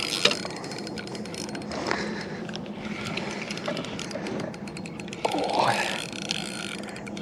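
Fishing reel being worked with a rapid, fine ratcheting click while a big smallmouth bass fights on the line. A short rush of noise comes about five seconds in.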